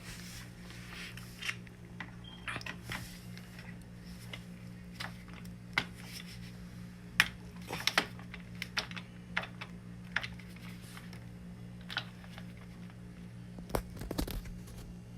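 Irregular light clicks and taps of a screwdriver and metal parts being handled, over a steady low hum.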